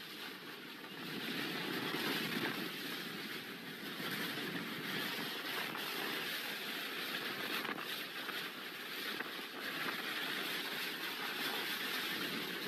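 Hurricane-force wind, a continuous rushing noise that swells and eases in gusts.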